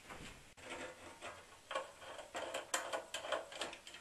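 A run of irregular light clicks and taps, several a second, from hands working the inverter's sheet-metal back panel and its screws.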